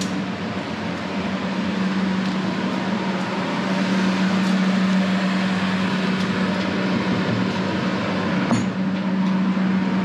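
A machine running steadily: a constant low hum with an even, fan-like rushing noise over it. A single short click comes about eight and a half seconds in.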